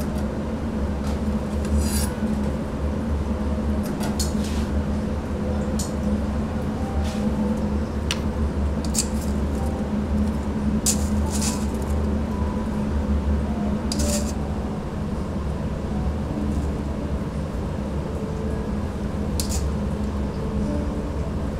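Metal utensils clinking and scraping against dishes now and then, over a steady low hum.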